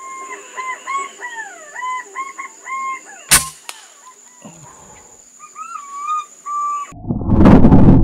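Green pigeons' whistling calls, rising and falling notes repeated over and over. About three seconds in, one sharp crack of a PCP air rifle firing a slug. Near the end a loud burst of added music comes in.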